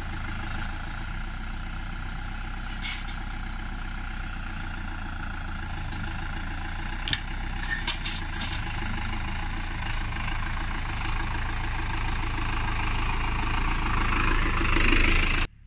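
TÜMOSAN 52.100 tractor's diesel engine running steadily at low speed while it works the rear bucket, with a few sharp knocks in the middle. The engine grows louder near the end, then cuts off suddenly.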